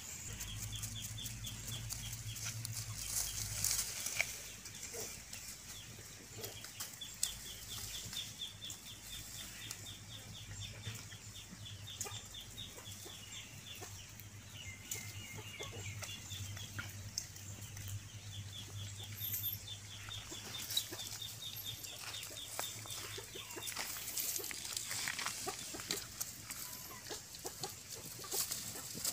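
Pigs rooting and snuffling through dry leaf litter, with scattered rustling and crackling. A fast, even, high-pitched chirping trill comes and goes in the background over a steady low hum.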